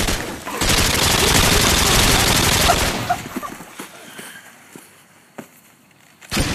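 Rapid automatic gunfire, a machine-gun sound effect laid over the film. It is loud for about two seconds and then tails off, with a second short burst near the end.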